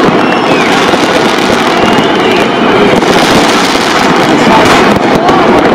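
Many New Year's Eve fireworks and firecrackers going off at once: a dense, unbroken crackle of overlapping bangs.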